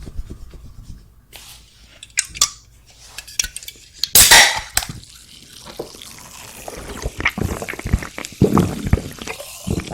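Close-miked eating sounds: small wet clicks and food handling, with one loud crunch about four seconds in and more wet clicking near the end.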